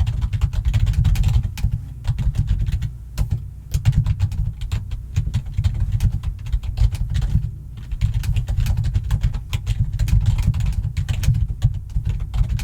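Fast, loud typing on a computer keyboard: keys clacking in rapid runs, with brief pauses about three seconds and seven and a half seconds in.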